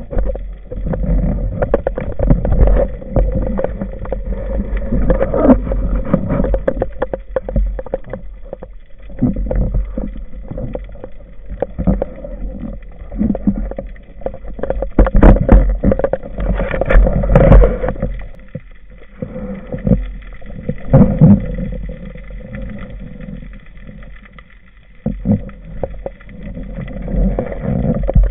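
Muffled underwater noise heard through a camera housing on a speargun: irregular knocks, rubbing and rumbling water movement as a speared leerfish struggles on the shooting line and is hauled in, louder and quieter in waves.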